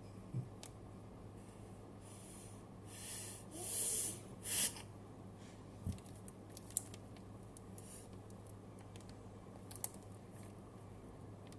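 Match Attax trading cards and their packs being handled: soft rustles and small clicks and taps, with a few louder rustles near the middle, over a steady low electrical hum.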